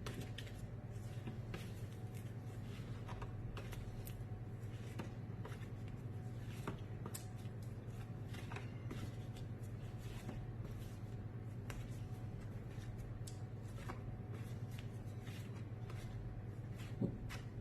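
Faint, irregular clicks and rustles of phonics flashcards being handled, over a steady low hum.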